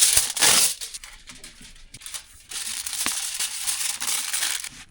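Plastic or paper packaging being crumpled and crinkled: a loud rustle at the start, scattered crackles, then a longer stretch of crinkling near the end.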